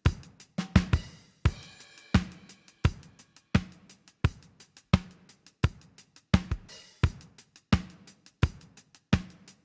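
Drum kit playing a steady beat with kick, snare, hi-hat and cymbal, a hit about every 0.7 seconds, as a demo loop run through the Brainworx bx_console AMEK 9099 mixing-console plugin.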